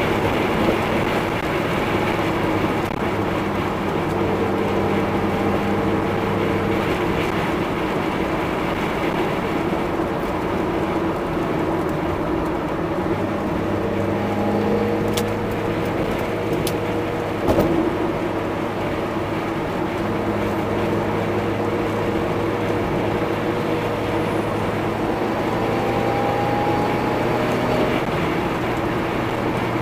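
1996 Mazda Miata's 1.8-litre four-cylinder engine running steadily at cruising speed, with road and tyre noise, heard from inside the cabin; the engine note shifts slightly in pitch a few times. A short thump comes a little past halfway.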